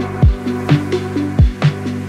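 Electronic background music with a steady beat: deep kick drums that drop in pitch, over held synth chords.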